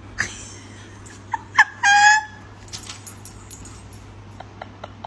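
A puppy's high-pitched cries: two short yelps about a second and a half in, then a longer, louder squeal just after, over a faint steady low hum.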